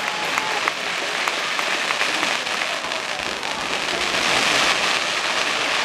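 Fireworks crackling: a dense fizz of many small cracks, like heavy rain, that grows a little louder after the middle.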